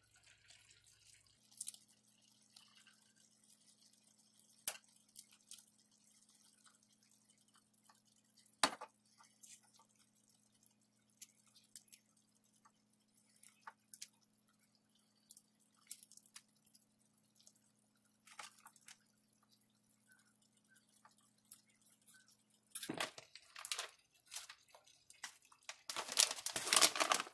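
Faint scattered clicks and soft scrapes of a spoon dolloping ricotta cheese onto lasagna in a stainless steel skillet, with two sharper clicks, over a low steady hum. Near the end comes a louder spell of crinkling as a plastic bag of shredded mozzarella is handled.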